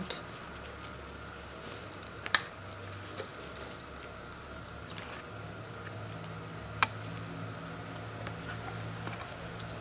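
Faint handling of thread and fabric as a stuffed cloth toy is sewn and a knot is tied, with two sharp little clicks about four seconds apart, over a steady low hum.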